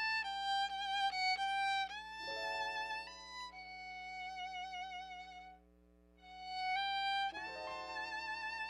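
Solo violin playing a slow melody with vibrato over a quiet instrumental backing track whose chords change twice. The violin breaks off for a half-second rest about two-thirds of the way through.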